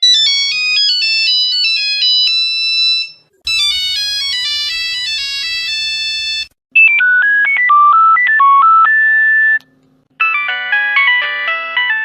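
Nokia 3310 mobile phone ringtones: four short electronic melodies of quick stepped notes play one after another, each about three seconds long with a brief pause between them, the third lower in pitch than the others.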